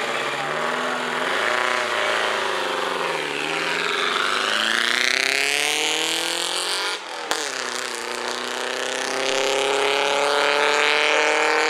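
Vintage open racing car's engine, blipped at low revs and then revving higher as the car pulls away; it cuts off suddenly about seven seconds in, then an engine climbs steadily in revs again.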